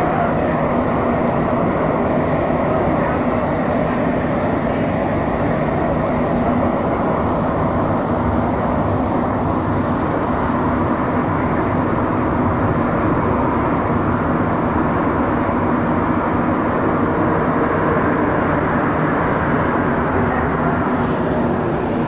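Montreal Metro rubber-tyred train running at speed through the tunnel, heard from inside the car: a steady, loud rumble of wheels and traction motors with a low hum.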